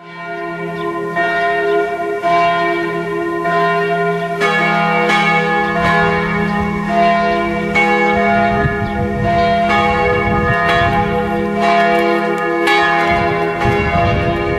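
Bells ringing, struck in succession about once a second, each note ringing on over a sustained low tone that shifts pitch around a third of the way in and again near the end.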